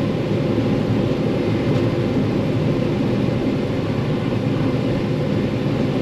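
Combine harvester running steadily while harvesting corn, an even low rumble with little in the higher range.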